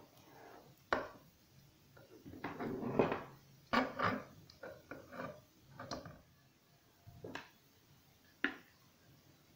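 Handling noise of a plastic bulb holder and LED bulb on a wooden table: a series of sharp clicks and knocks with a stretch of rubbing and scraping as the bulb is screwed in and the holder set down, then a plastic plug-in unit being picked up.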